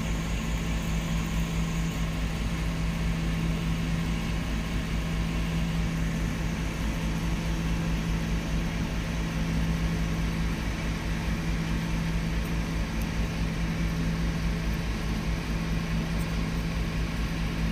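A steady, low mechanical hum on one constant pitch, with a low rumble beneath it.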